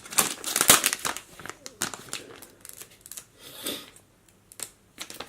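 Rapid small clicks and scratchy plastic handling noises from a small screwdriver working the screws out of the back of an LG G3 phone. The noises are densest in the first two seconds, then come only here and there.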